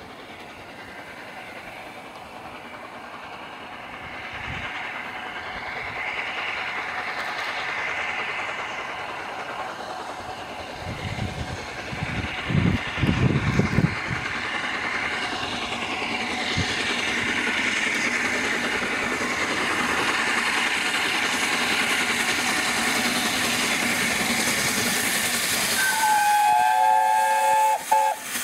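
Three-cylinder LNER Peppercorn A1 Pacific steam locomotive 60163 Tornado approaching with a train, its steam and running noise growing steadily louder. A few low thuds come about halfway through. Near the end the locomotive sounds its whistle, a chord of several tones held for about two seconds.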